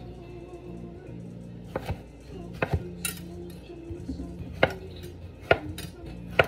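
Kitchen knife slicing zucchini on a cutting board: sharp, irregularly spaced knocks of the blade meeting the board, starting about two seconds in.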